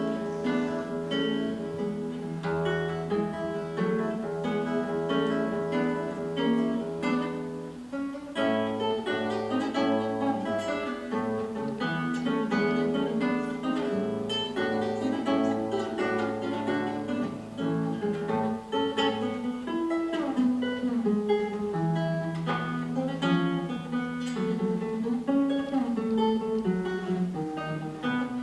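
Solo plucked-string instrument playing a piece, with quick melody notes over a low note held for several seconds.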